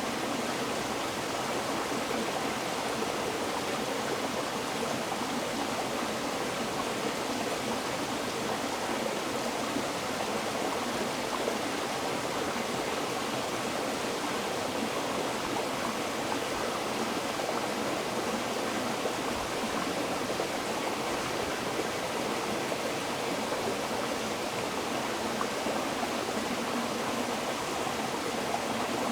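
River water flowing steadily over rocks, a constant rushing and babbling.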